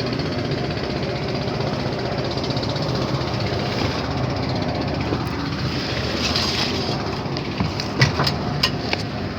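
A ship's engine running steadily, with a few sharp knocks about eight to nine seconds in.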